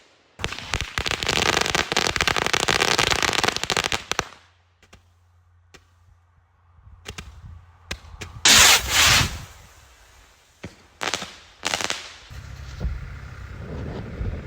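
Fireworks going off: a dense run of rapid crackling pops for about four seconds, then scattered single pops, a loud short hissing burst about halfway through, and a few more pops near the end.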